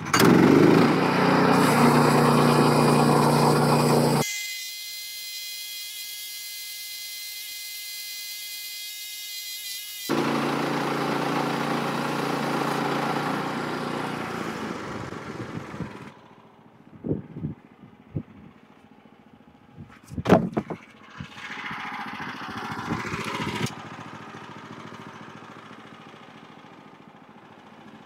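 Woodland Mills HM122 portable bandsaw mill running, its engine driving the blade through a log. For several seconds the sound turns thin and high, then comes back full and fades out about halfway through. Scattered knocks and thumps follow.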